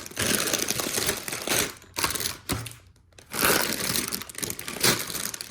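Plastic LEGO parts bags crinkling and rustling as they are rummaged through, with a short lull about three seconds in.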